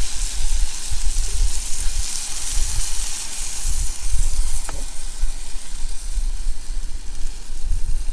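Water being poured into a hot pot of browned sausage and pasta, hissing and sizzling; the hiss eases off about halfway through. Gusty wind rumbles on the microphone.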